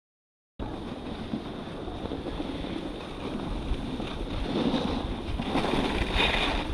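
Wind rushing over an action camera's microphone together with skis hissing over packed snow during a downhill ski run. It starts suddenly about half a second in and grows louder toward the end as the skier picks up speed.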